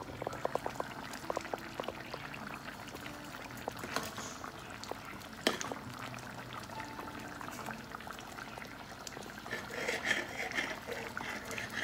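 Thick, creamy curry gravy bubbling in a frying pan on the stove as it is stirred with a spatula. There is a quick run of pops at the start and a couple of sharp clicks later.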